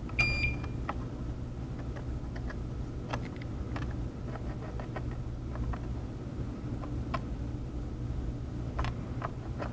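A steady low hum of workbench electronics-repair equipment, with scattered light clicks of metal tools on the circuit board while the charging port's legs are hand-soldered. A short high beep sounds just after the start.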